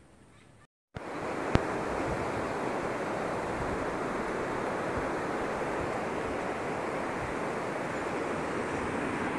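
Steady rushing of a rocky river's rapids, cutting in abruptly about a second in, with one sharp click shortly after.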